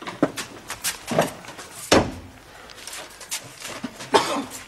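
A scuffle: quick footsteps, knocks and clatter of bodies and furniture on a wooden floor, with a heavy thump about two seconds in.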